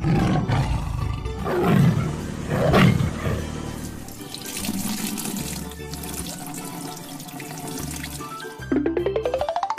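Big-cat roar sound effects, a tiger's roar for a cartoon, over children's background music: two or three gliding roars in the first three seconds, then a rushing hiss, and a rapidly rising ratcheting sweep near the end.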